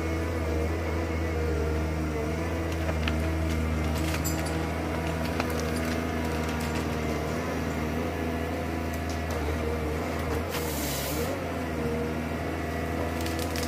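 ProSilva S4 forest harvester's diesel engine running steadily under load, with a hydraulic whine that shifts in pitch as the crane and machine work. A few sharp cracks, and a brief hiss a little after ten seconds.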